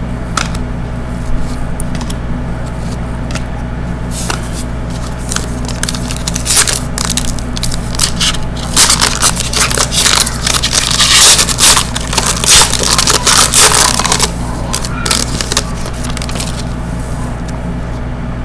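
Trading cards and their pack packaging being handled: a run of crinkling and rustling that is densest from about nine to fourteen seconds in, over a steady low hum.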